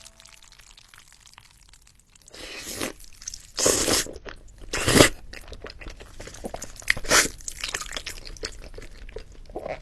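Close-miked ASMR eating of crispy chicken: after about two quiet seconds come loud crunching bites, the biggest about four and five seconds in, with quieter crackly chewing between them.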